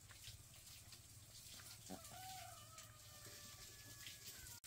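A rooster crowing once, faintly: one long, slowly falling call that starts about two seconds in and is cut off abruptly near the end.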